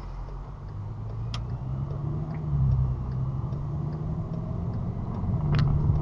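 A car engine heard from inside the cabin as the car moves off from a standstill, its note growing louder and rising a little as it accelerates. Two sharp clicks, one about a second in and one near the end.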